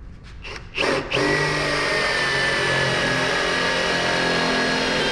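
Cordless drill spinning a Forstner bit to bore a shallow counterbore into a wooden board, so a lag screw head sits below the surface. A few short trigger blips, then about four seconds of steady running that stops abruptly at the end.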